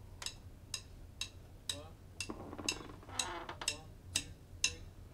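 Metronome click track ticking steadily at about two clicks a second, faint, with low voices here and there.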